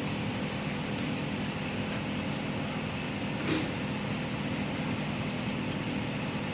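An engine runs steadily with an even hum, and a single short, sharp knock is heard a little past halfway.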